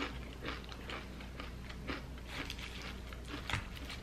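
A person chewing food with the mouth closed: soft, irregular wet mouth clicks, roughly two a second.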